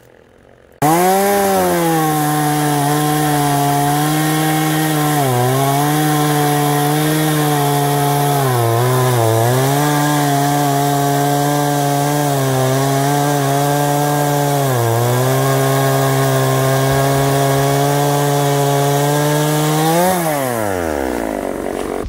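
Petrol two-stroke chainsaw running at high revs while cutting through a fallen black locust trunk. Its pitch dips briefly a few times as the chain bogs in the wood. Near the end it revs up briefly, then winds down to a stop.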